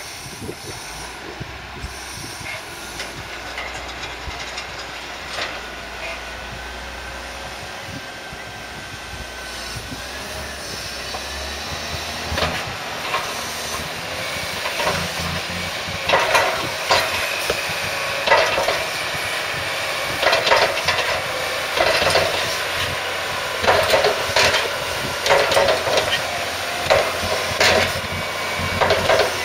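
Heavy diesel farm machinery at silage running steadily and growing louder, with a low drone at first, then sharp rattling, clanking bursts about every one to two seconds from the middle on.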